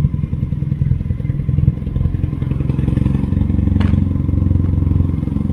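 Motorcycle engines idling at a standstill, including the Honda Hornet 919 that carries the camera. It is a steady low, pulsing idle rumble that grows a little louder about two seconds in.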